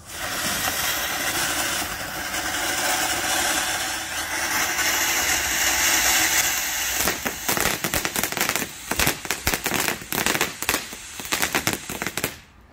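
TNT Triceratops fountain firework spraying sparks with a loud steady hiss that starts suddenly, then from about seven seconds in a dense run of sharp titanium crackles over the hiss. It cuts off abruptly just before the end as the fountain burns out.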